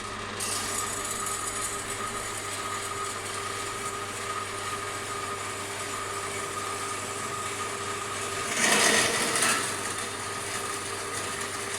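A Forestwest 4.5-inch metal-cutting bandsaw runs steadily on its 3/4 HP motor, with a constant whine and hum that start just after the opening. About nine seconds in there is a louder, noisier stretch lasting about a second.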